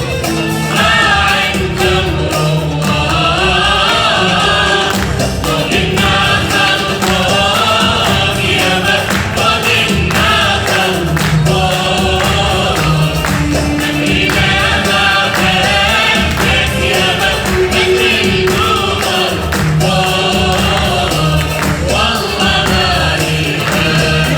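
A live choir singing a song over instrumental accompaniment.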